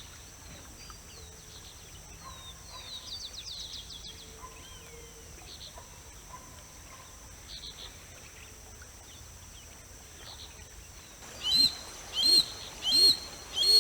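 Birds calling: faint scattered chirps and short whistles, then four loud sharp calls in quick succession near the end, roughly one every two-thirds of a second.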